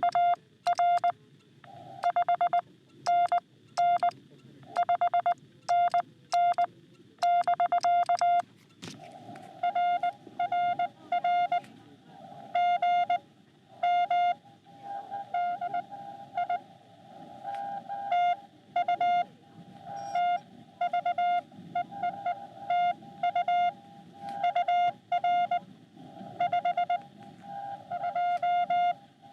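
Morse code (CW) from a Xiegu X6100 transceiver: one mid-pitched tone keyed in dots and dashes. For about the first nine seconds the keying is clean and loud, the sidetone of the operator's own sending. After that a received CW signal takes over, with a hiss of band noise behind it.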